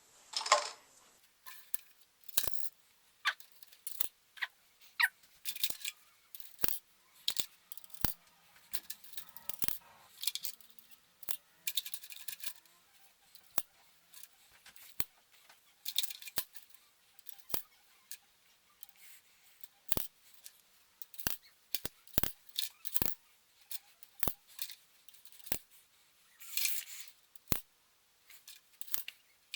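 Plastic Connect 4 discs clicking and clattering as they are dropped one after another into the upright plastic grid and handled, a long series of sharp, irregularly spaced clicks, some followed by a short rattle.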